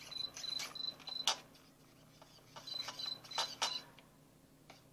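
Electronic low-battery warning beeps from RC gear whose batteries are running down: two runs of quick high beeps, about four in each, a couple of seconds apart, with a few sharp clicks, the loudest about a second in.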